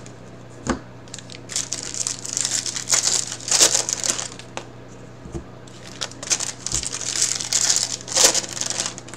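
Foil trading-card pack wrapper crinkling as it is torn open and the cards are pulled out, in two runs of rustling bursts, with a sharp click just under a second in.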